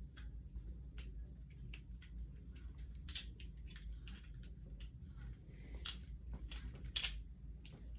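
Bear & Son live-blade balisong being flipped: irregular sharp metallic clicks and clacks as the handles swing around the blade and strike the tang. A few louder clacks come near the end.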